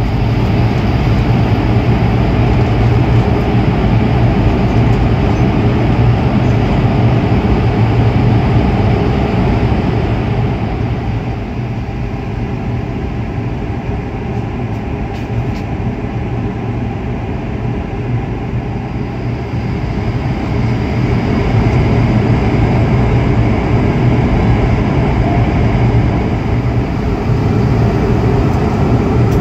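Steady in-cabin noise of an Airbus A220 airliner heard from a window seat by the wing: the hum of its Pratt & Whitney PW1500G geared turbofans and rushing airflow over a low drone. It eases slightly for several seconds in the middle, then comes back up.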